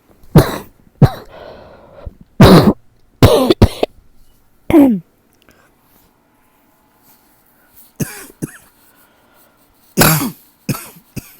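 A person coughing in fits, a tickly cough that won't settle. A run of harsh coughs comes in the first five seconds, then a pause, then more coughs and throat clearing about eight and ten seconds in.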